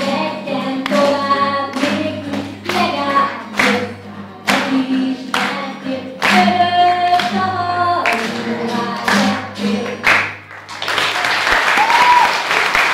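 A woman sings to a strummed acoustic guitar. About eleven seconds in the song ends and applause starts.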